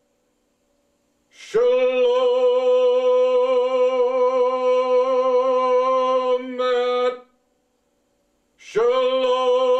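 A man's voice intoning "Shalom" as one long chanted note, the "sh" opening into a vowel held at a steady pitch with a slight waver for about five seconds. After a short pause he starts a second drawn-out "Shalom" near the end.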